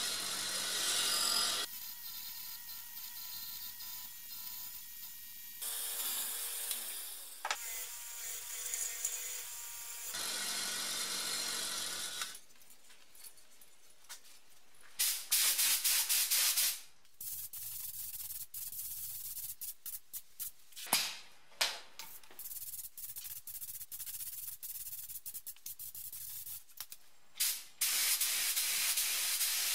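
A run of cut-together workshop sounds: a Sealey bench grinder running with a part held against its wheel, then rubbing and handling noises with scattered clicks, and an air spray gun hissing in two long bursts as it sprays clear lacquer, one about halfway through and one near the end.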